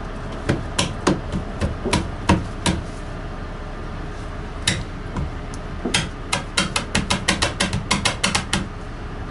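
Sharp knocks on a wooden framing board in a van conversion: a scattered run of about eight in the first three seconds, a single knock near the middle, then a quicker string of about four a second near the end.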